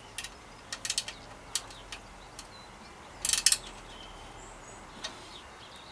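Small spanner clicking in short runs of sharp clicks as a mudguard stay bolt is tightened at the bicycle's front fork dropout. The loudest run comes about three seconds in.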